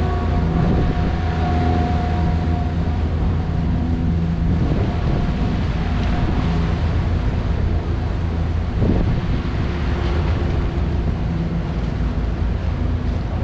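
Motor boats on a canal running beneath the bridge, a steady low engine hum with water wash, and wind buffeting the microphone.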